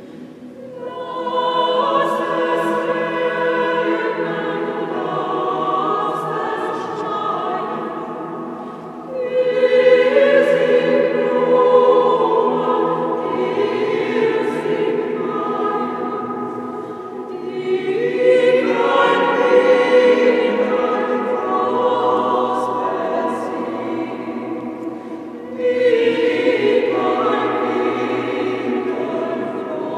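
Mixed choir of women's and men's voices singing together in long sustained phrases. A new, louder phrase comes in about every eight seconds and eases off before the next.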